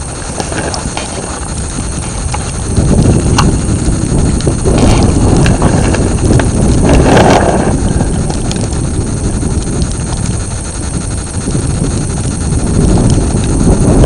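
Wind buffeting the microphone: a loud, low rumble that swells and fades, with a few faint clicks.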